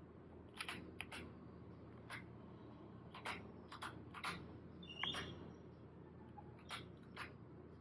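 Scattered single keystrokes on a Keychron K2 HE magnetic-switch keyboard, about ten slow presses spaced irregularly. A brief high chirp sounds about five seconds in, under a faint low hum.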